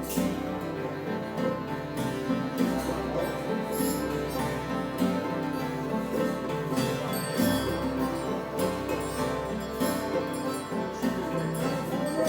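Acoustic improvised music of plucked and bowed string instruments over a steady low drone, with notes struck or plucked about once a second.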